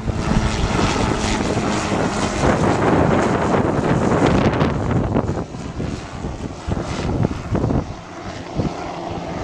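Tour helicopter flying past overhead: a steady engine and rotor noise, loudest for the first five seconds or so and then fading.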